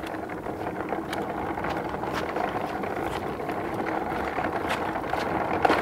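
A steady mechanical running sound, even in level throughout.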